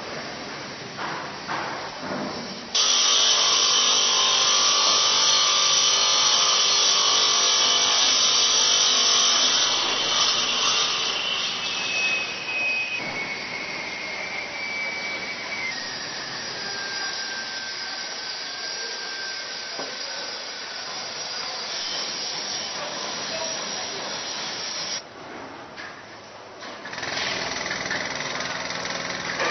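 Power saw cutting stone: a loud, steady high-pitched whir that starts abruptly, its whine dropping in pitch in steps as the blade takes the load. Near the end it gives way to quieter, different site noise.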